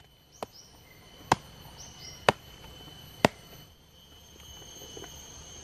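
Machete blade chopping into the spiny husk of a durian to split it open: four sharp strikes about a second apart.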